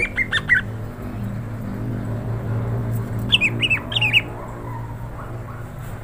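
Adult greater green leafbird (cucak hijau) giving two quick runs of short, falling chirps, one at the very start and another about three and a half seconds in, over a steady low hum.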